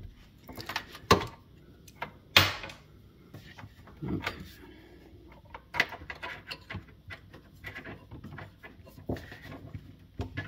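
Handling noise: scattered light clicks and knocks as an ice maker's bin thermistor and its thin wire are worked loose from a plastic bracket inside the bin.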